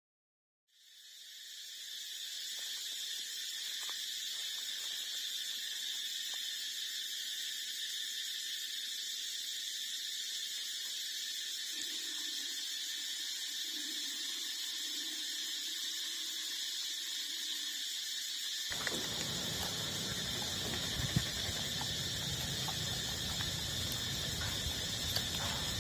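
A steady, shrill chorus of insects starts about a second in and drones on without a break. About three quarters of the way in, a low rustling with a few soft knocks joins it.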